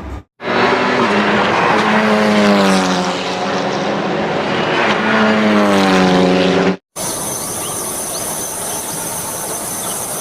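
Race car engine running at a high, slightly wavering pitch in two swells, cutting off abruptly about seven seconds in; a steady hiss with a thin high whine follows.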